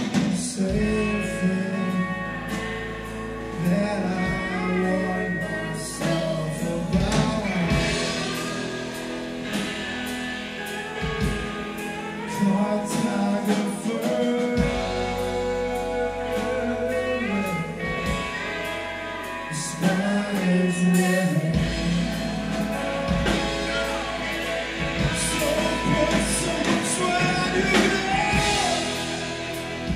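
A live band plays a song with a man singing lead, on acoustic guitar, electric bass, electric guitar, steel guitar and drums.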